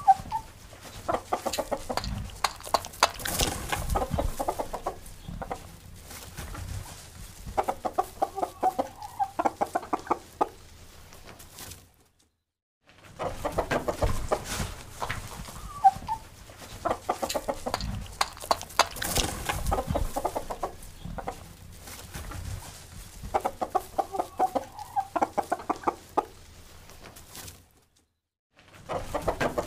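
Roosters clucking and squawking in quick pulsed bursts, with sharp knocks between the calls. The same stretch of about fourteen seconds plays twice, each time breaking off into about a second of silence.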